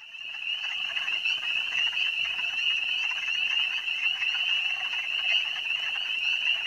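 A dense, steady chorus of many small animals calling at once, a high-pitched trilling made of rapid overlapping calls.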